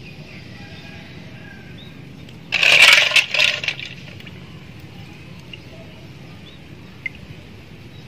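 A short clatter and scrape of hard snail shell against a metal fork, about two and a half seconds in, as snail meat is picked out of the shell. Faint bird chirps over a steady low background.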